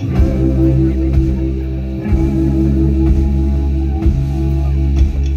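Live rock band playing an instrumental passage: heavy sustained bass notes and guitar, with a beat about once a second and no singing.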